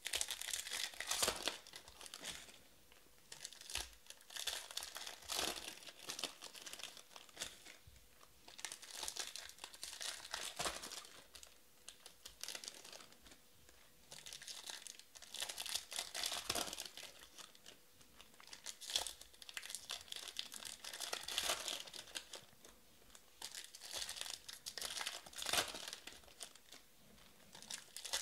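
Foil wrappers of 2020 Topps Finest baseball card packs being torn open and crinkled, along with cards being handled and stacked, in bursts every few seconds.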